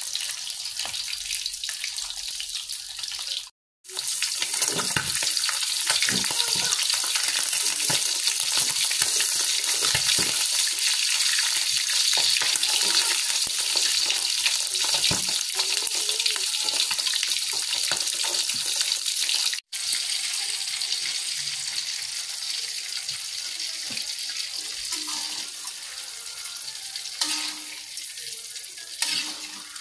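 Hot oil sizzling steadily in a wok as whole fish fry, with occasional scrapes of a metal spatula against the pan; near the end chillies and tomatoes are frying and the sizzle is a little quieter.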